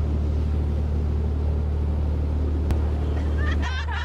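Tour boat's engine running steadily, a low drone. Voices come in faintly near the end.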